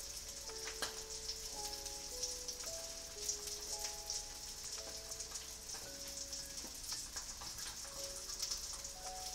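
Salmon fillets sizzling in a frying pan over medium heat, a steady crackling hiss with tiny pops. Soft background music with a slow melody of held notes plays along.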